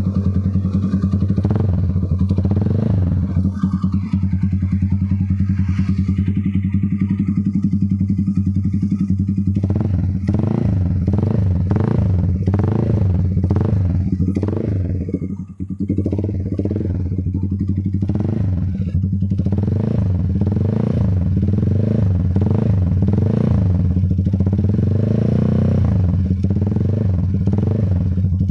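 Motorcycle engine breathing through an SC aftermarket exhaust with a big elbow header pipe, running loud. It idles steadily at first, then from about ten seconds in is revved up and down again and again, with one brief drop about halfway through.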